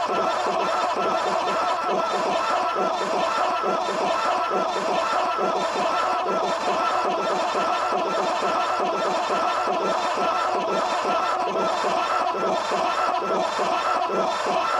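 Creepy synthesized ambience: a dense, unbroken layer of many overlapping laugh-like voice fragments at an even level, with a thin steady tone above them.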